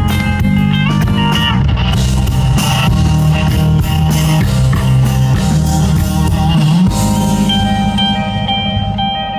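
Live rock band playing an instrumental passage on electric guitars and drum kit, with no vocals. About seven seconds in the drumming thins out and held guitar chords ring on.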